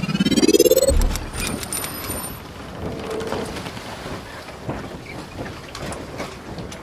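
Logo intro sound effect: a rising sweep with a sparkling high glide that ends in a low boom about a second in, followed by a steady crackling noise with scattered clicks.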